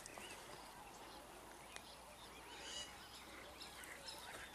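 Faint, scattered chirps of small birds over quiet outdoor ambience.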